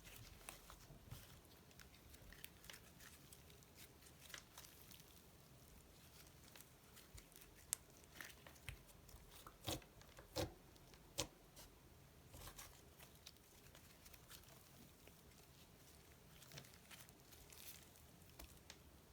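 Slime being mixed by hand: faint, scattered sticky clicks and pops, with a few louder pops in the middle.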